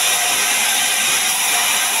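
Sawmill band saw running with a loud, steady, even hiss and a faint constant tone, as a log is fed along its carriage.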